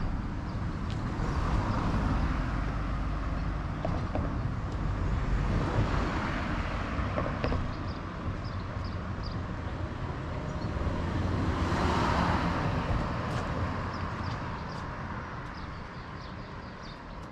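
Street traffic: cars passing one after another, the sound swelling and fading, with the loudest pass about twelve seconds in. Small birds chirp over it throughout.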